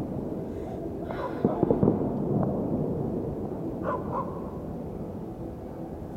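Fireworks going off: a quick cluster of sharp pops about a second and a half in, over a steady background din.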